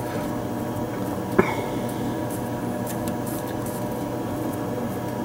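Steady mechanical hum filling the room, with one brief rising squeak about one and a half seconds in.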